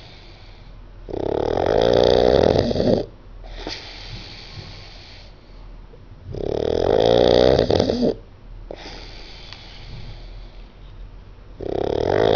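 A sleeping person snoring: three loud snores about five seconds apart, each lasting about two seconds, with a softer, breathy breath between them.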